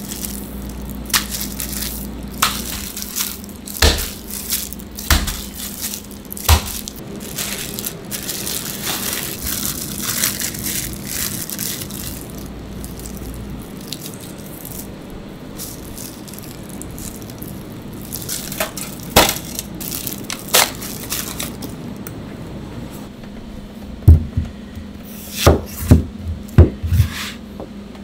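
Food-prep handling sounds: scattered clicks and rustles of gloved hands working raw pork slices and plastic wrap over a steady low hum. Near the end come loud, sharp knife strikes on a plastic cutting board as an onion is cut.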